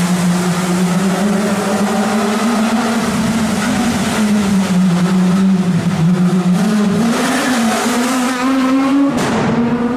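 Rally car's engine at high revs, its pitch dipping and climbing with throttle and gear changes as it approaches, then rising as the car comes close and dropping suddenly as it passes by about nine seconds in.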